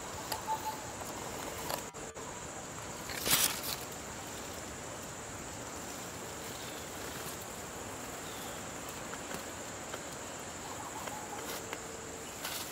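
Outdoor nature ambience: a steady high-pitched insect drone over a soft hiss, with a brief louder noisy rush about three seconds in.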